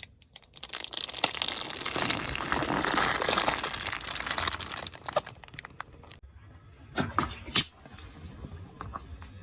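Car tyre rolling over and crushing crunchy objects: dense crackling and crunching for about four seconds, then quieter, with a few sharp snaps about seven seconds in.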